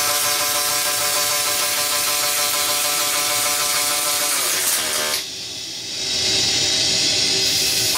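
Wire-arc welding torch of a metal additive-manufacturing machine depositing aluminium alloy wire: a steady arc hiss with a buzzing hum. About four and a half seconds in, the hum slides down in pitch and the arc cuts out. Under a second later the hiss starts again, with the hum returning near the end.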